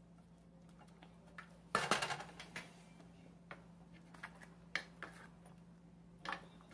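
A wooden spoon stirring thick ground-pork tomato sauce in a stainless steel pan, with scattered knocks and scrapes against the pan, loudest about two seconds in, over a low steady hum.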